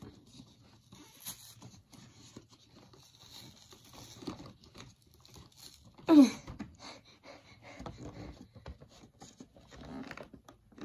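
Light rustling and small clicks of a cardboard-and-plastic collection box being handled and pried at, with one short vocal sound falling in pitch about six seconds in, the loudest thing.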